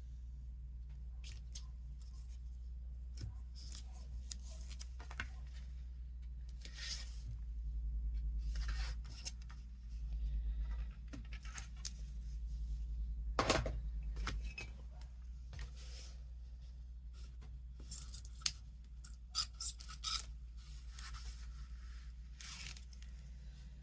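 Double-sided tape being pulled, cut and peeled from its backing for mounting a cardstock topper: irregular short scratchy rips and snips with paper rubbing, over a low steady hum.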